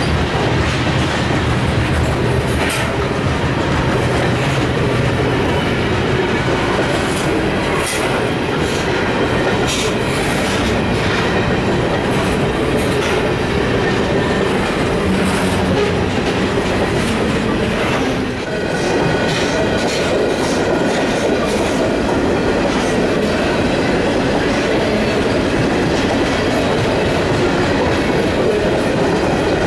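Freight train of covered hopper cars rolling past: a steady rumble of wheels on rail with irregular clicks and clacks over the rail joints. Thin, steady, high squealing tones from the wheels become clearer in the second half.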